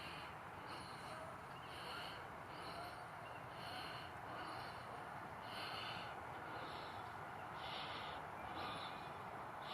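A high-pitched animal call repeated about once every 0.8 seconds, over a steady outdoor hiss.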